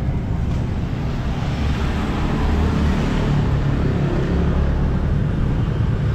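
Street traffic: a steady low engine rumble of motor vehicles.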